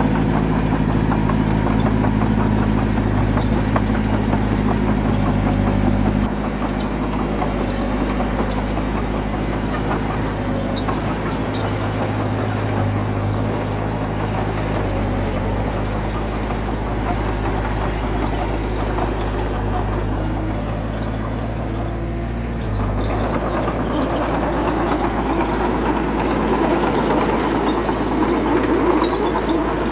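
Heavy earthmoving machine's diesel engine running steadily. It drops in level about six seconds in and picks up again near the end, with a rougher, busier sound.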